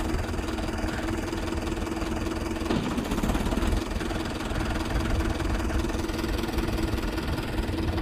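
Mahindra Yuvo 575 DI tractor's diesel engine running steadily at an even pitch, the tractor stuck with its rear wheel sunk in mud.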